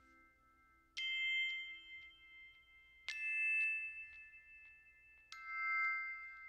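Background music: three struck, bell-like chime notes about two seconds apart, each ringing on and slowly fading.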